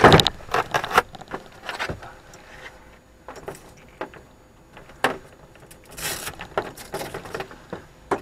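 Irregular knocks, clicks and rattles of hard objects being handled. The loudest knock comes right at the start, and there is a busier clatter about six seconds in.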